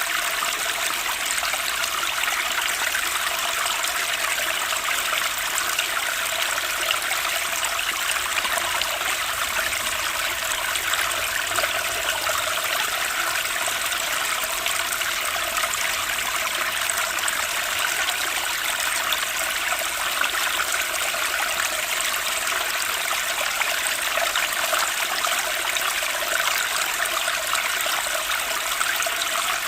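Flowing water of a stream, a steady, unbroken rushing and trickling.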